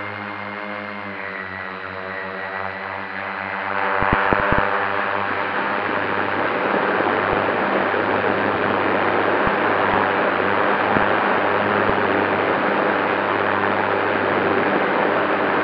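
FPV drone's motors and propellers whining with a buzz of several tones. About four seconds in it gets louder with a few clicks, then carries on as a dense rushing sound.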